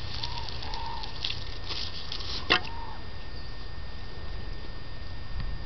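Water from a garden hose spattering onto a compost pile's layer of kitchen scraps, stopping about two and a half seconds in with a sharp click. A few short chirps sound during the spraying, over a low rumble.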